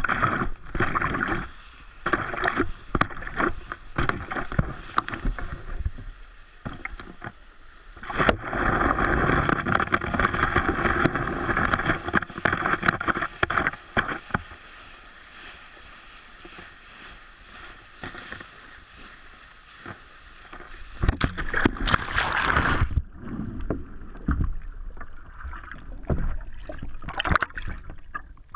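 Sea water splashing and rushing around an action camera as a stand-up paddle surfer rides and falls in shallow surf, in irregular loud bursts. One loud hissing rush of whitewash comes about 22 seconds in, with quieter stretches while the camera is underwater.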